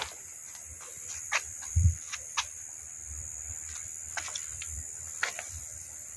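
Night insects droning steadily at a high pitch, with scattered short clicks and a dull low thump about two seconds in.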